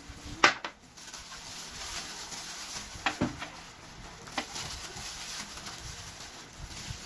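Plastic-gloved hands rubbing and squishing marinade into a whole raw chicken in a glass bowl, the gloves crinkling, with a few sharp knocks, the loudest about half a second in and others about three and four seconds in.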